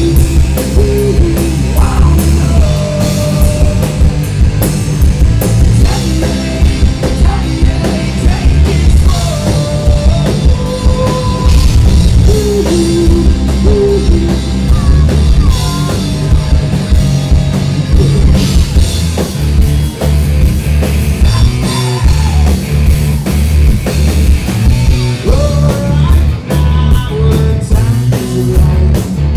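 Live rock band playing loud: electric guitar, bass guitar and drum kit, with a male vocalist singing over them.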